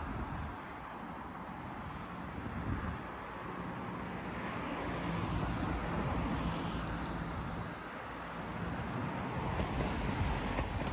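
Steady city street traffic noise, with an engine's low hum rising out of it in the middle.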